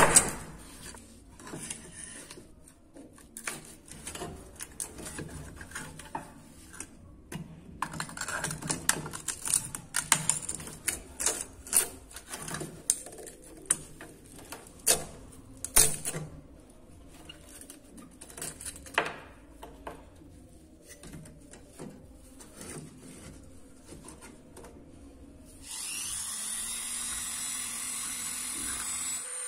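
Clinks, taps and scrapes of a screwdriver and glass panes against a rusty metal lamp frame being taken apart. Near the end a small handheld rotary tool switches on and spins up, its pitch rising, then runs steadily.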